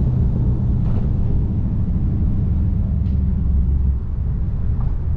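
Dodge Charger SRT 392's 6.4-litre HEMI V8 running at low speed while cruising, a low, steady exhaust rumble.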